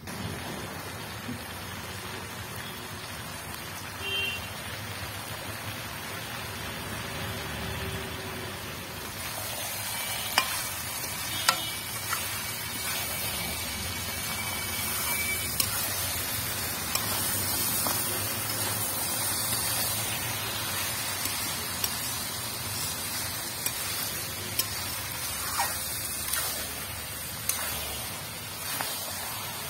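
Mutton pieces in masala sizzling as they fry in an aluminium kadai while a wooden spatula stirs them, with occasional sharp clicks of the spatula against the pan. The sizzle grows louder about a third of the way in.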